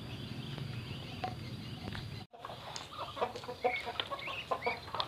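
A flock of chickens clucking in many short, overlapping calls, starting abruptly after a brief dropout a little over two seconds in; before that only a steady low rumble.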